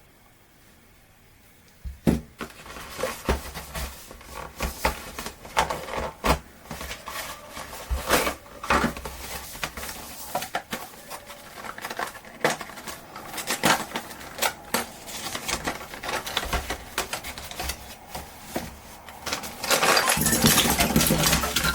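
Irregular clicks, clinks and knocks of small hard objects being handled, starting about two seconds in and growing into a denser clatter near the end.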